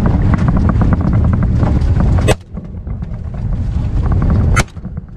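A vehicle driving through tall grass and weeds: a heavy low rumble of engine and wind, with rapid ticking and slapping of stalks against the front. Twice, about two seconds in and again near the end, a sharp snap comes and the rumble drops away suddenly, then builds back up.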